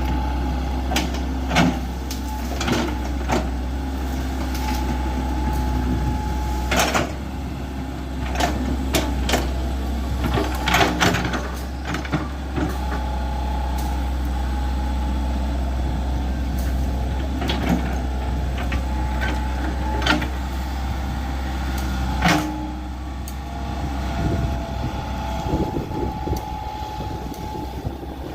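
Hydraulic excavator at work digging a trench: its diesel engine runs steadily with a whining tone that comes and goes, over frequent sharp clanks and knocks. The engine drone drops off about 22 seconds in.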